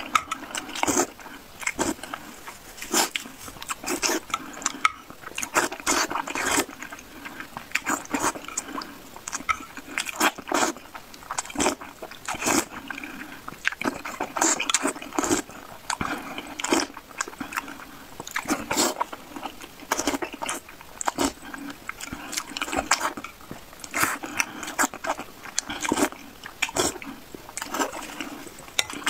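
A person eating soup: slurping broth from a spoon and chewing, with many sharp, irregular wet mouth clicks and smacks.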